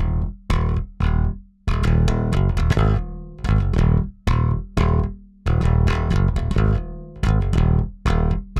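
Five-string Warwick Vampyre SN-5 electric bass with active MEC pickups, played on the neck pickup alone with the treble and bass EQ turned all the way up. A run of short, sharply attacked notes broken by brief pauses.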